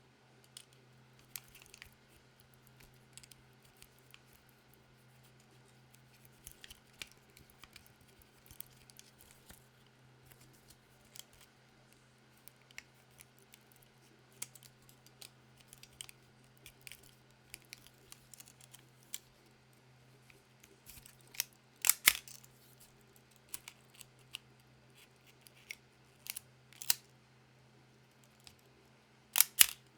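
Pentax K1000 SE film camera being handled and loaded with film: many small mechanical clicks and rustles, with a few louder sharp snaps about two-thirds of the way through and a double snap near the end.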